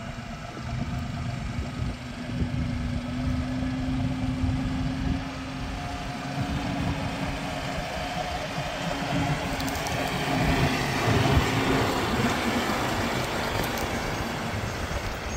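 Engine running steadily with a low rumble and a held hum; a rushing noise swells about ten seconds in and eases toward the end.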